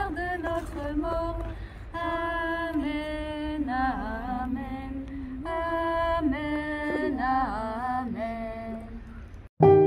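Unaccompanied voices singing a slow hymn in unison, holding long notes. Near the end the singing cuts off abruptly and piano music starts.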